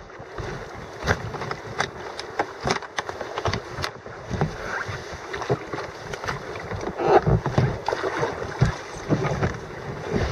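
Two sea kayaks rafted side by side, hulls and paddles knocking and clicking together irregularly as the boats are held alongside, over a steady wash of water.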